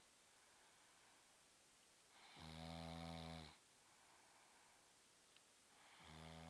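Snoring in slow, regular breaths: two low-pitched snores, each a little over a second long, about three and a half seconds apart, with quiet breathing between.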